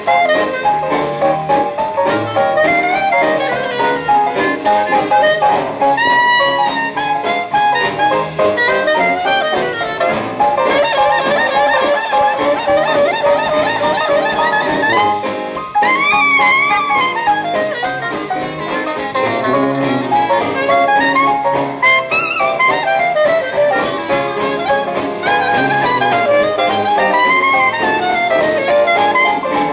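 Traditional jazz band playing an up-tempo number: a clarinet takes the lead with quick runs and bent notes, over piano, guitar, drums and sousaphone keeping a steady beat.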